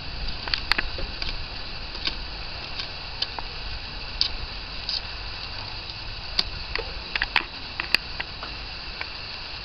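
Steady low rumble and hiss with scattered sharp clicks and ticks.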